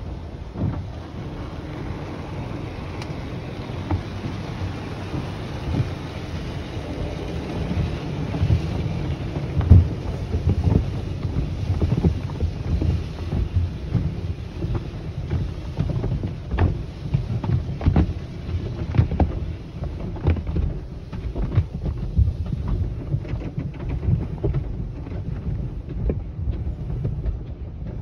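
Automatic tunnel car wash heard from inside the car: water jets spraying on the body and glass, then the machine's cloth brushes and wash strips slapping and rubbing over the car in many dull, irregular thumps.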